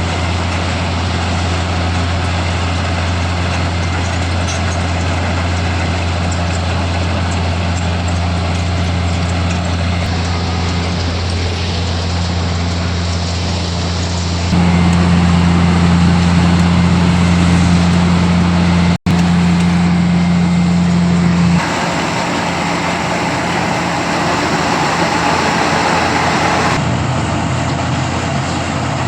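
A milling machine running with a steady low hum and a broad rushing noise above it. About halfway through the sound turns abruptly louder and higher-toned, cuts out for an instant, then drops back to the earlier level.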